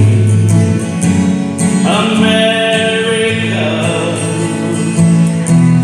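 A patriotic song sung over instrumental backing: a held note at first, then the melody moves on, with the word "America" sung near the end.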